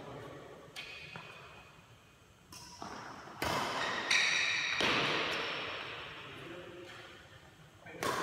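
Badminton rally: racket strings striking a shuttlecock in a string of sharp hits, each ringing on in the echo of a large metal-walled hall. The hits are loudest from about three and a half to five seconds in.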